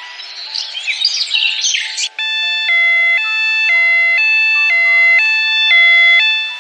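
Birds chirping, then about two seconds in a two-tone emergency siren starts, switching between a high and a low pitch about twice a second.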